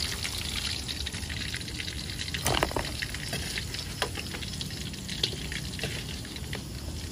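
Pieces of palm civet meat frying in hot oil in a wok: a steady sizzle with scattered pops and crackles.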